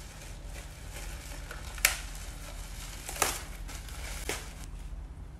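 Plastic garment bag crinkling as it is handled and opened, with three sharp clicks a second or so apart.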